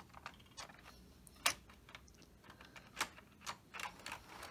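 Scattered light plastic clicks and taps of model railway coaches being handled and coupled on the track, the sharpest click about one and a half seconds in.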